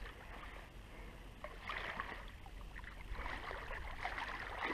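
Water splashing and sloshing as a hooked wels catfish thrashes at the surface by the bank: a short bout about two seconds in, then a longer one from about three seconds in.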